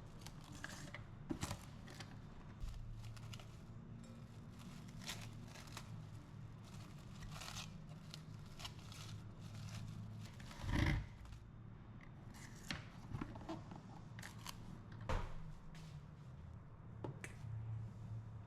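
Light handling sounds of cooking work: scattered soft clicks, scrapes and rustles over a low steady hum, with a louder knock about eleven seconds in and another near fifteen.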